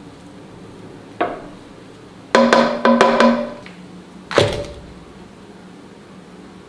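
Stainless steel dishes clanking: a light knock, then a quick run of ringing metal clatters, then one more ringing knock.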